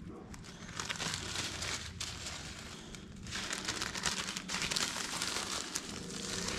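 Grass seed being spread by hand over soil, heard as two spells of dry rustling and crackle, a short one about a second in and a longer one from about three seconds in.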